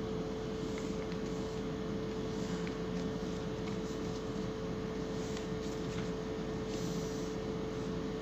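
Pen scratching on paper with faint strokes and ticks while a table is drawn, over a steady background hum with a constant tone.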